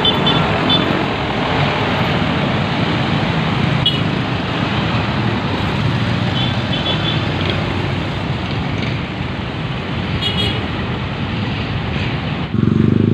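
Busy city road traffic: a coach's engine and tyres pass close by, then many cars and motorcycles run steadily. A few short high beeps sound now and then. Near the end the sound shifts suddenly to a louder low engine hum.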